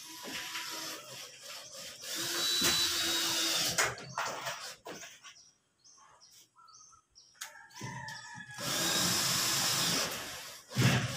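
Cordless drill driving screws up through a ceiling board into the steel ceiling frame, in two runs of about a second and a half each. A short thump near the end.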